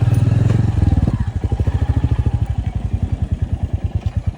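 Motorcycle engine running at low revs with an even, rapid thumping beat. About a second in it eases off and settles into a steady, slightly quieter beat.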